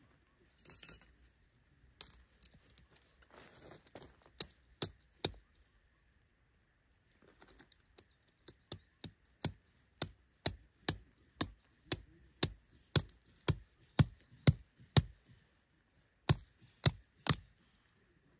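Tent peg being hammered into stony ground: sharp metallic strikes, three together, then a long steady run at about two a second, with a short pause before three final blows.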